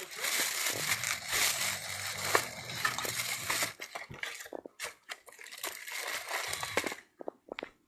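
Fireworks packaging crinkling and rustling as it is handled, dense for about the first three and a half seconds, then thinning to scattered rustles and clicks.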